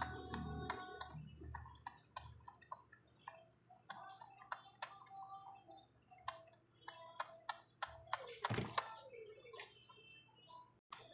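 A two-week-old pug puppy suckling milk from a feeding syringe: soft wet smacking clicks and small squeaks, with a short, louder whine about eight and a half seconds in.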